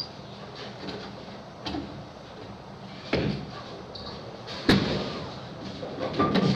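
Bowling alley clatter: a Hammer Vibe bowling ball thrown down the lane, with several sharp knocks of balls and pins, one very sharp crack about two-thirds of the way in and a louder clatter of pins near the end.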